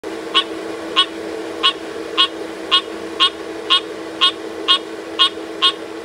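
A tree frog calling: short calls repeated evenly about twice a second, over a steady low hum.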